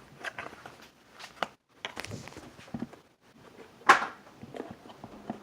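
Scattered clicks and knocks of small objects being handled and set down on a hard surface, with one sharp, louder knock about four seconds in.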